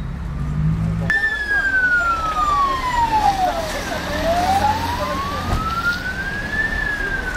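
Ambulance siren starting suddenly about a second in and wailing in a slow sweep: one long fall in pitch, one long rise, then falling again near the end. A low engine rumble runs underneath.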